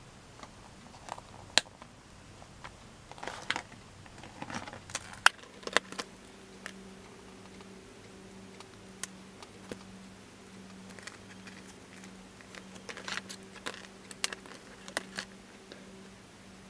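Round alphabet stickers peeled off a glossy sticker sheet and pressed onto a paper journal page: scattered small clicks, taps and crinkly rustles of the sheet and paper.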